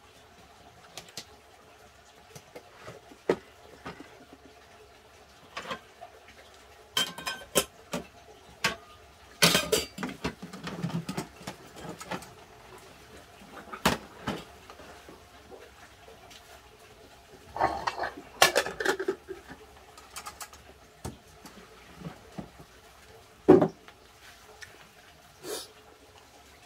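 A pot, spoon and dishes being handled after a meal: scattered clinks and clatter in several short bursts with quiet gaps between, and a sharper knock near the end.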